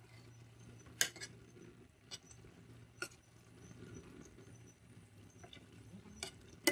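Faint stirring of thick lentil daal with a steel ladle in an aluminium pot, with a handful of light clicks of the ladle against the pot.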